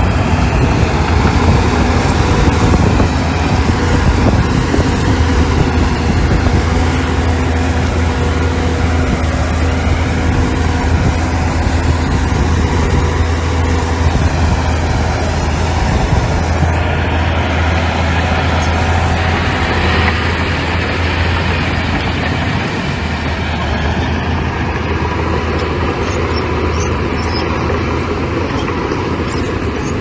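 Bulldozer's diesel engine running steadily under load, with mechanical clatter from the machine. The highest sounds ease a little past halfway.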